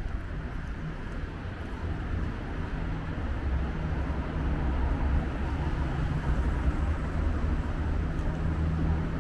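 City street ambience made mostly of a steady low vehicle engine hum that slowly grows louder.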